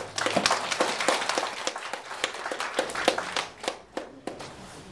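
Congregation applauding, dense clapping that thins out and stops about four seconds in.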